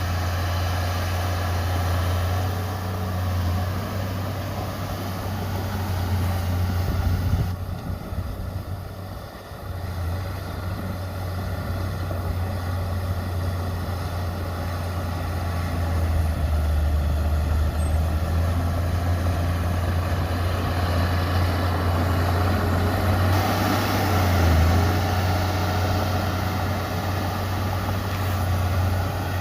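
Heavy diesel earthmoving machinery running with a steady low engine drone; the sound dips briefly about eight seconds in.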